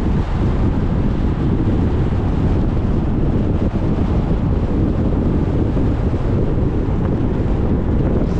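Steady wind buffeting on a car-mounted camera's microphone at highway speed, with a deep rumble from the road and the moving car underneath.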